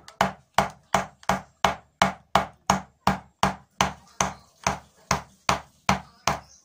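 Carving gouge driven into wood by steady mallet blows, sharp knocks about three a second, cutting against the grain.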